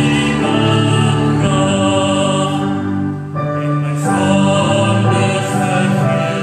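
Worship song: singing voices over instrumental accompaniment, holding long notes.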